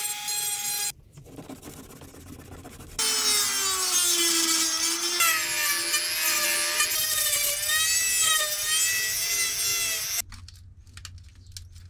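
Handheld rotary engraver cutting into the plastic front panel of a PC case. Its high whine runs briefly, drops away, then comes back loud about three seconds in, its pitch sagging and recovering as the bit bites into the plastic, and it stops shortly before the end.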